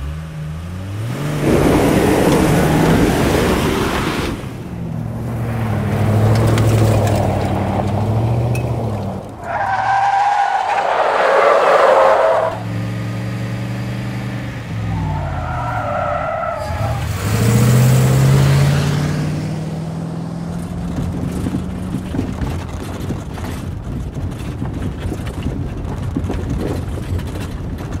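A run of car sounds: engines revving and accelerating, cars passing by, and tyres squealing twice, about ten and sixteen seconds in.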